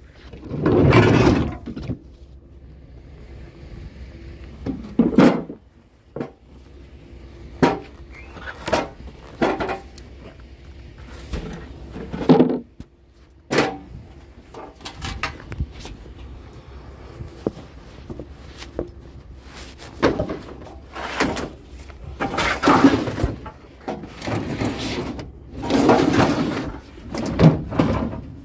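Irregular knocks, clunks and rattles, some loud and sharp and others short and scraping, scattered through the stretch over a low steady hum.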